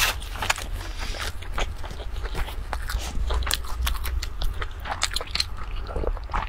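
Close-miked mouth sounds of a person chewing food: a rapid, irregular run of small wet crackles and crunches.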